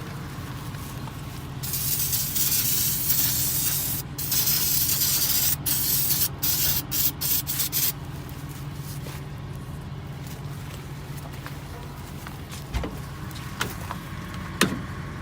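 Aerosol brake cleaner sprayed onto hydraulic couplers to keep dirt out of them. There is one longer spray about two seconds in, then a string of short bursts that stops about eight seconds in, over an engine idling steadily.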